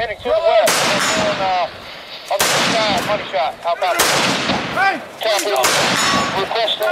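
Rifle shots from AR-15-style rifles, fired slowly and deliberately: about four sharp cracks, one every second and a half or so, each ringing out through the woods.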